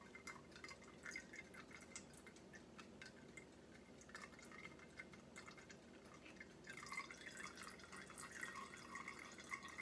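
Faint dripping and trickling of herb-infused oil draining from a jar through a mesh strainer into a galvanized metal container, a little stronger in the last few seconds.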